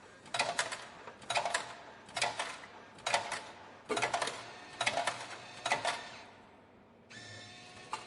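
Coffee vending machine mechanism working in seven short rattling bursts, about one a second, then a steady whir with a faint hum starting about a second before the end.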